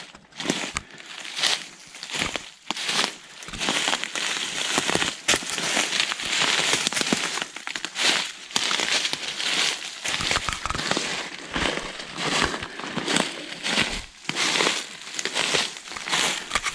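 Footsteps crunching through dry leaf litter and twigs, a steady run of crackling steps with no pause.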